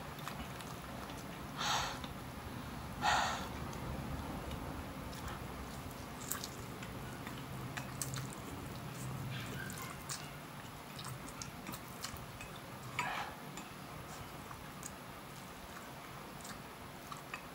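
A person eating spicy instant noodles with chopsticks: quiet chewing and small clicks, with a few short, sharp sucking noises, the loudest about two and three seconds in and another about thirteen seconds in.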